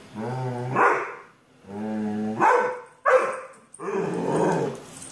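Dog growling and barking, probably at the robot vacuum it is facing. It goes in three or four rounds: a low held growl rises into a sharp bark, with short gaps between.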